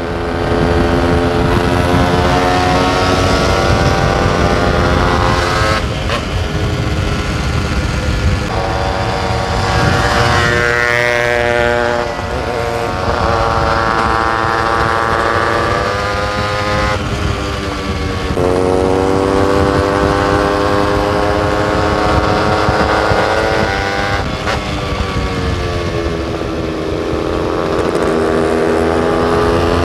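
Motorcycle engine under way, pulling through the gears: its pitch climbs over several seconds and drops back at each shift, about five times, over a low wind rumble.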